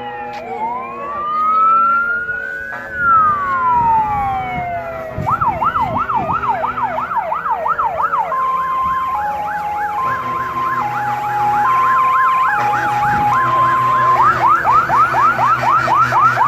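Fire engine sirens sounding together. An electronic siren wails slowly up and down, then switches to a fast yelp about five seconds in, with a two-tone hi-lo siren stepping between two notes joining it partway through.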